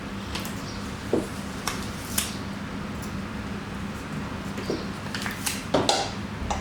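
Window blind slats clicking and knocking against the frame in a loose, irregular series of light taps, over a steady low hum.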